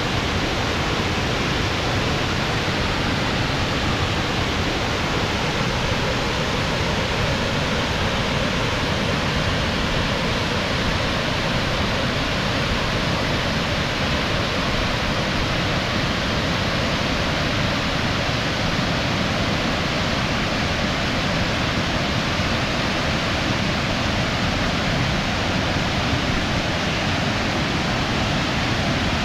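Rushing water of a large waterfall: a steady, even rush with no breaks or changes.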